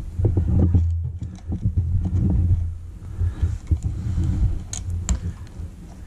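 Needle-nose pliers and a wire connector clicking and scraping against the terminals of an electric motor as a lead is pushed on, over a low rumble that is loudest through the first three seconds or so.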